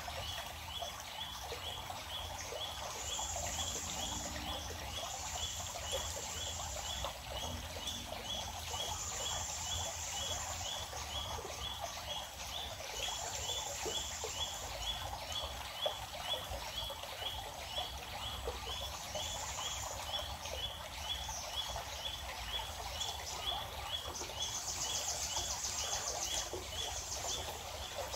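Riverside ambience: a high chirping call repeating evenly about twice a second, with short spells of higher buzzing and a steady hiss of flowing water.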